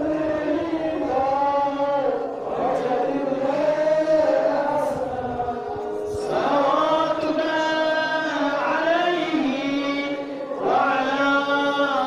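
Mourning chant for Ashura, a noha-style lament sung by male voices in long, held, gliding phrases with short breaks about two, six and ten and a half seconds in.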